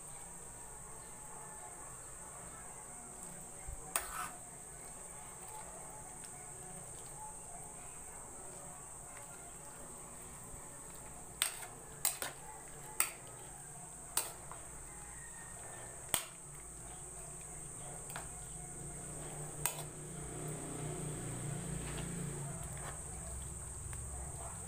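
A metal spoon knocks sharply against an aluminium cooking pot about seven times while stirring a simmering cabbage-and-sardine broth, most of the knocks coming in the second half. Under it runs a steady high-pitched insect drone.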